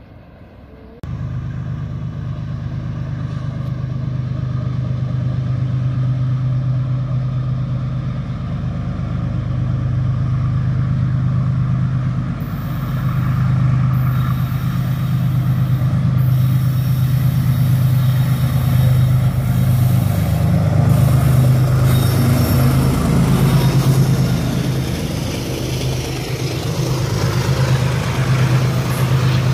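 Freight train's diesel locomotive engine running with a steady low drone that grows louder as the train approaches and passes. From about two-thirds of the way in, the rattle of the wagons rolling over the rails joins it.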